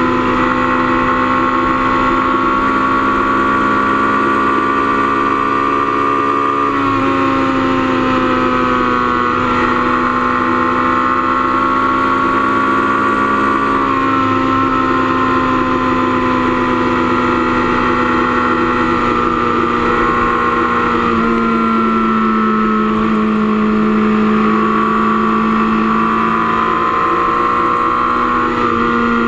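Motorcycle engine running at steady highway cruising speed, heard from on the bike, its pitch dipping and rising slightly a few times.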